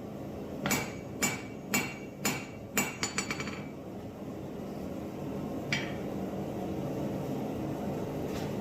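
Hand hammer striking steel on an anvil while forging a drawknife blade: about half a dozen ringing blows, roughly two a second, the last few quicker and lighter. The blows stop about three and a half seconds in, and a steady rushing noise takes over, with one more light clink near six seconds.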